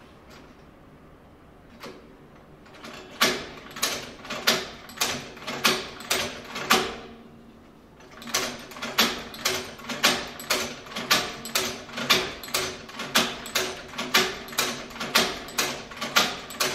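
Cowboy Outlaw manual leather sewing machine stitching by hand, one sharp clack per stroke at about two a second. The stitching starts about three seconds in, stops briefly around seven seconds, then runs on at a steady rhythm.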